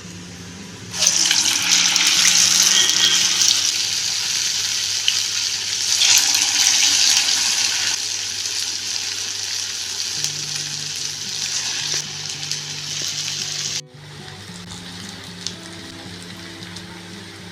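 Urad dal vada batter sizzling in hot oil: a loud sizzle starts suddenly about a second in as the batter goes in, surges again around six seconds, then slowly dies down.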